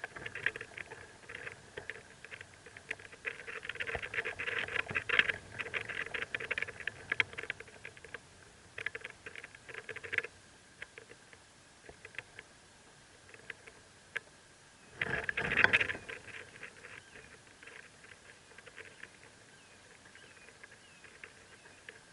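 Four-day-old northern mockingbird nestlings begging with rapid faint cheeps, a dense spell through the first ten seconds, then sparser. About fifteen seconds in comes a brief louder noisy burst.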